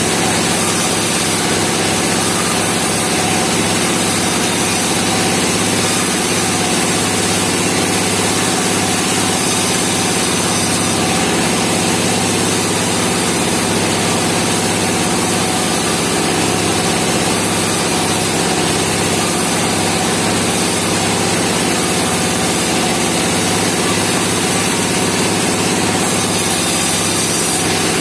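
Engine of a bandsaw sawmill running steadily, with an even, unchanging drone.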